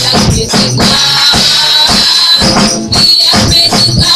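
Live gospel praise music played loud through a PA: keyboard and bass under percussion keeping a steady beat, with women singing.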